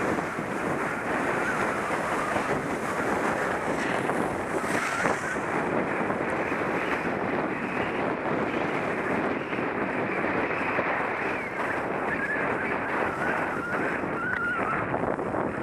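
Steady rushing of wind over the microphone of a camera carried by a skier moving downhill, mixed with the hiss and scrape of skis on packed snow.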